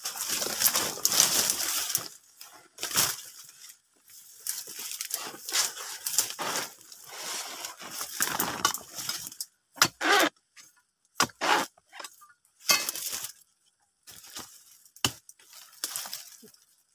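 Irregular bursts of rustling and crackling from dry palm fronds and grass as a long-handled harvesting chisel is worked at the base of a young oil palm and rubber boots step through the dry litter, with a few short sharp knocks in the second half.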